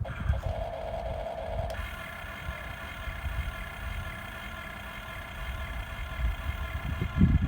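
Small electric motor of a radio-controlled toy construction vehicle whining. A lower hum comes first, then about two seconds in it switches to a higher steady whine that holds until near the end, over a low rumble.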